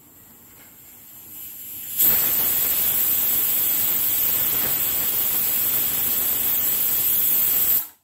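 Pigeon aluminium pressure cooker whistling: steam forces up the weight valve and escapes in a loud, steady hiss. It builds over about two seconds, then runs evenly for about six seconds and cuts off suddenly near the end.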